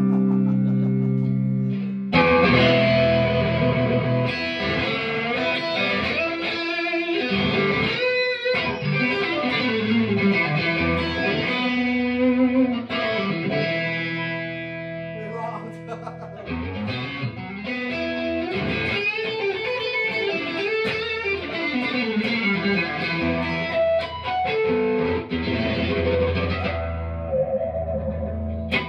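Electric guitar played through a Love Pedal Super Lead MKII overdrive into a Mesa Boogie Nomad amp. A held chord rings for about two seconds, then overdriven lead lines follow, with string bends and sliding notes.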